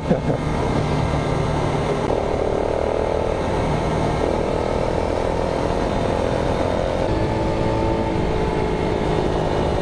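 Honda Monkey Z50J's small single-cylinder four-stroke engine running steadily as the bike is ridden, mixed with wind and road noise.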